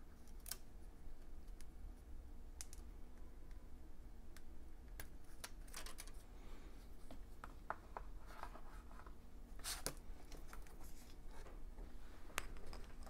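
Light clicks, taps and scrapes of a MacBook Air trackpad being handled and lifted out of the laptop's open aluminium case, over a steady low hum.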